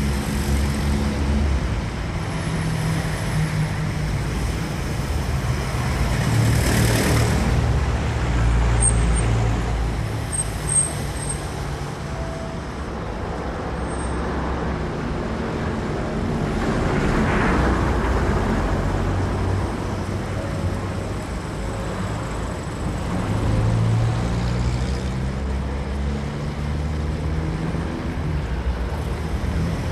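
City street traffic: a steady low rumble of engines, with vehicles passing close by. The loudest passes come about 7 and 17 seconds in, and there is a short sharp knock about 11 seconds in.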